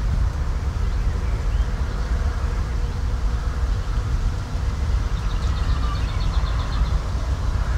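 Outdoor ambience with a dense, fluctuating low rumble throughout. A bird gives a short, rapid, high trill about five seconds in.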